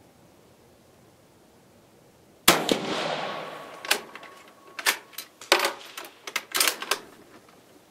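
A single rifle shot from a 6.5 mm Carcano M38 short rifle about two and a half seconds in, a sharp crack with a long echoing tail. It is followed by a run of metallic clicks and clacks as the turn-bolt action is worked to eject the case and chamber the next round.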